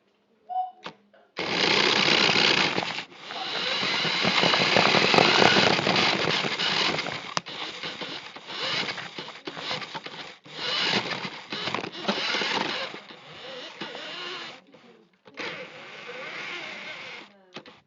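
Radio-controlled toy car's small electric motor and gears buzzing in bursts, starting and stopping sharply several times as it is driven.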